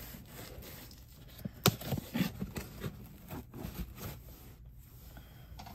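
Handling noises: a sharp knock nearly two seconds in, followed by a run of softer knocks, taps and rustles.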